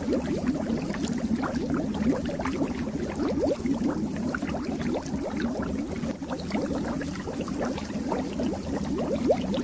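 Fish tank water bubbling steadily, a dense stream of small bubble pops and gurgles.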